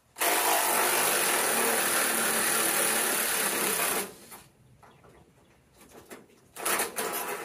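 Handheld power tool driving a bolt with a 9/16 socket, running steadily for about four seconds, then a second, shorter run near the end.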